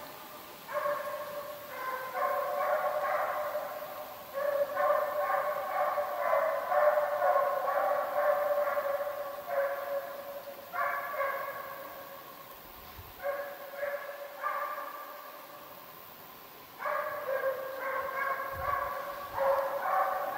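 Russian hounds giving tongue on a hare's trail: long runs of baying broken every few seconds by short pauses.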